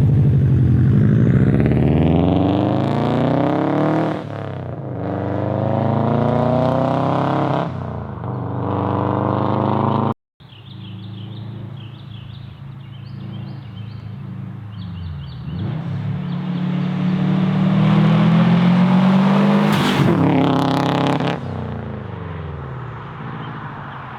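Turbocharged Subaru WRX flat-four engine accelerating hard, its pitch climbing through two gears with a drop at each shift. After a break it revs up once more, with a short sharp burst of noise near the top, then falls away.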